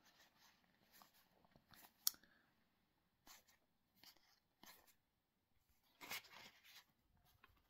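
Faint, scattered rustles and soft clicks of trading cards and booster-pack wrappers being handled, with one sharper click about two seconds in and a slightly louder rustle about six seconds in.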